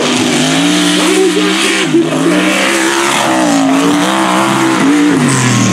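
Mega truck engine revving hard, its pitch climbing and dropping several times as the driver works the throttle over the dirt course.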